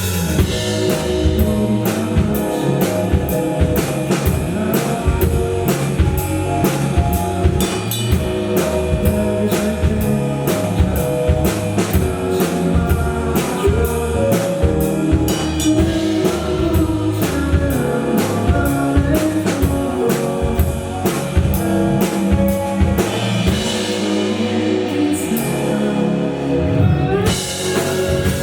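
Live rock band playing, with a drum kit keeping a steady beat under electric guitar and bass. Near the end the low end drops out briefly and a rising swell leads back into the full band.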